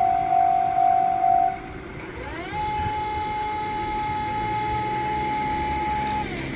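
Japanese level-crossing warning bell ringing about twice a second, then stopping under two seconds in. A steady whine follows: it rises in pitch, holds for about four seconds and falls away near the end, over a low rumble.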